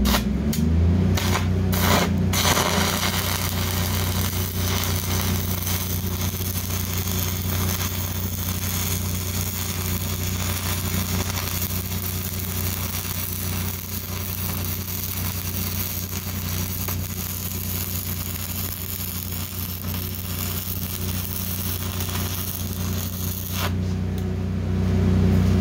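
Stick-welding arc from a 5/32 E6010 (5P) electrode running a root pass on rusty steel, burning through the rust: a steady crackling hiss for over twenty seconds that cuts off about two seconds before the end as the arc is broken. A steady low hum runs underneath.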